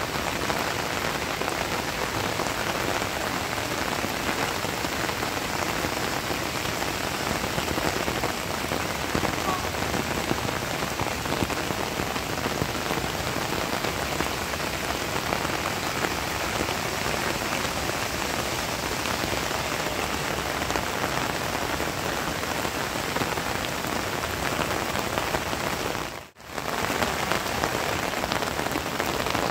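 Heavy rain falling steadily, a dense even hiss of drops on the ground. Near the end the sound drops out for a moment.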